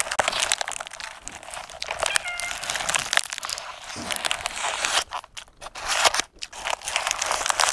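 Close-up chewing and crunching of a crisp fried vegetable pastry, with its paper wrapper crinkling in the hands.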